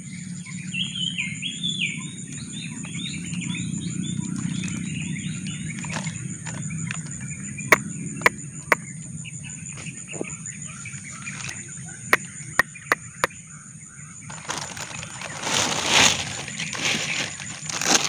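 Outdoor field ambience: birds calling and chirping over a steady high-pitched drone and a low rumble, with a scattering of single sharp clicks. Near the end a loud stretch of rustling through dry grass and stalks takes over.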